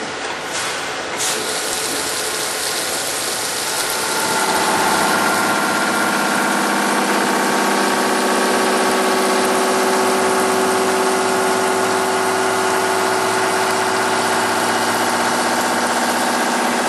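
CNC mill thread-milling Hastelloy with an 8-flute replaceable-insert thread mill at 950 RPM under coolant: a steady coolant hiss, joined about four seconds in by a steady multi-tone hum and a rise in loudness as the tool begins cutting the 1/2"-14 NPT external thread.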